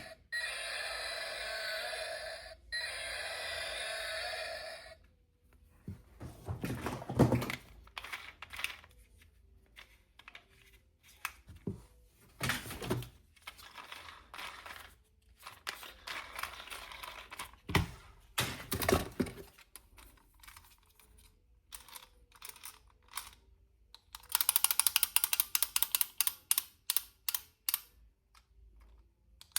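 Toy packaging being handled and opened by hand: scattered plastic rustles, taps and knocks, with a dense run of rapid clicking near the end. A steady pitched sound runs for the first few seconds and stops about five seconds in.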